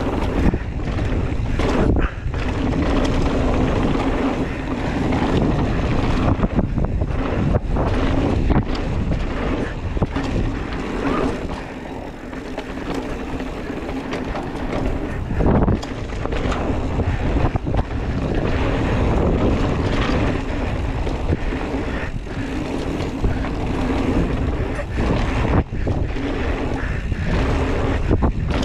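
Wind rushing over the microphone of a camera on a mountain bike being ridden along a trail, with a steady low rumble and many short knocks and rattles from the bike over rough ground.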